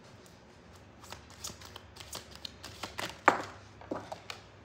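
Oracle/tarot cards being handled on a table: a series of light, irregular taps and flicks, with one sharper tap about three seconds in.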